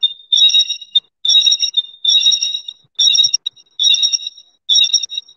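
A high electronic alert tone, a short chirping burst of several pitches, repeating about once a second.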